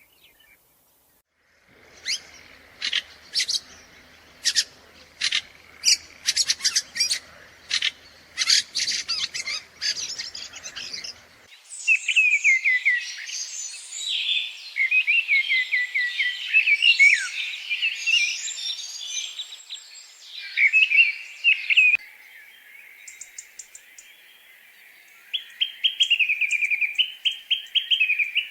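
Small songbirds singing and calling: first a string of sharp, separate chip-like calls, then a varied warbling song of quick rising and falling notes, and near the end a fast trilled phrase.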